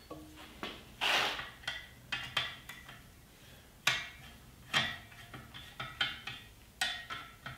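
Allen key clicking and clinking against the metal clamp of a motorcycle-style brake lever as the lever is tightened onto a hydraulic lift pump's handle: a string of separate light metallic clicks, irregularly spaced.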